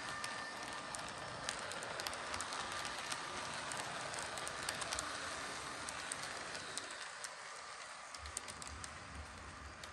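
HO-scale Electrotren S-114 high-speed EMU model running along the track: a steady rushing rumble of wheels on rail, dotted with small irregular clicks. It grows gradually quieter toward the end.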